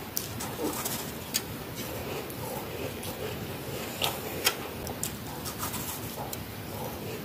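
Freezer frost being chewed and bitten close to the microphone: irregular crisp crunches, loudest about a second and a half in and twice around four seconds in, half a second apart.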